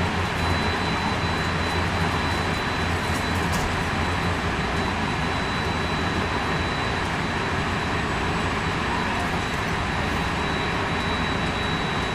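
Running sound inside a JR West 223 series 2000 electric multiple unit motor car travelling steadily: an even rumble of wheels on rail with a low hum and a thin, steady high-pitched whine.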